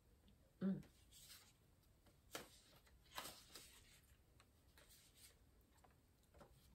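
Faint taps and rustles of cards being handled and laid down on a wooden table, a few light ticks standing out in the middle. There is one short vocal sound just after the start.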